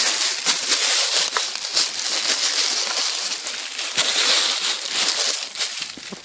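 Kettle packaging crinkling and rustling right at the microphone as it is handled and pulled away: a dense, crackly rustle full of small clicks that dies down near the end.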